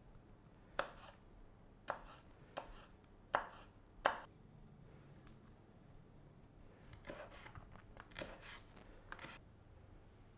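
Kitchen knife cutting garlic on a plastic cutting board: five sharp, single knocks of the blade on the board, unevenly spaced over the first four seconds or so. Softer clusters of cutting strokes follow in the second half.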